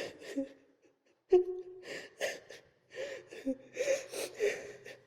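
A person crying, with a string of gasping breaths and short voiced sobs at irregular intervals.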